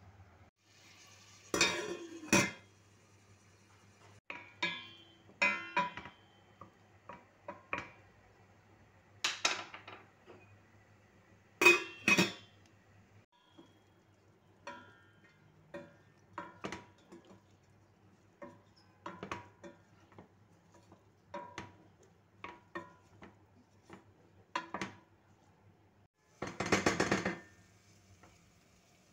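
A stainless steel cooking pot being worked: a string of separate clanks and knocks as utensils strike its sides, with a dense rattling burst of scraping or stirring near the end.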